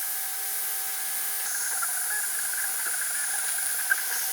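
3D printer running a print: a steady whir and hiss from its fans with the whine of its stepper motors, whose tones shift about a second and a half in as the head changes its moves.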